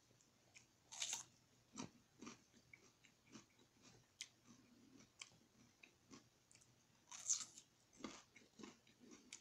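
Quiet close-up mouth sounds of a person biting and chewing a potato: irregular small chewing clicks, with two louder bursts about a second in and about seven seconds in.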